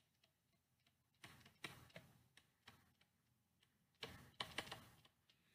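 Near silence broken by a few faint taps and scratches of a stylus on a tablet screen during handwriting, in a cluster near the middle and another near the end.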